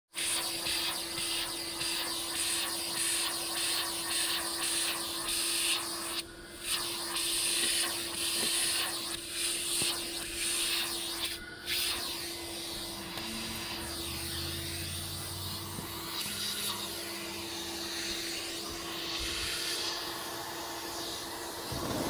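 Vacuum cleaner running steadily, a hiss of rushing air over a constant motor hum, as its hose nozzle is pushed across a van's carpeted floor; the airflow sound briefly drops twice.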